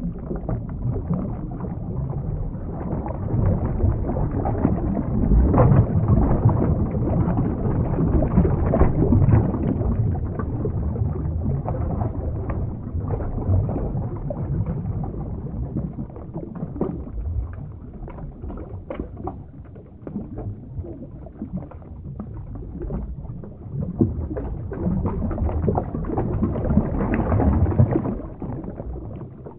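Underwater ambience sound effect: a muffled rush of water with small bubbling pops, swelling and easing in waves and fading near the end.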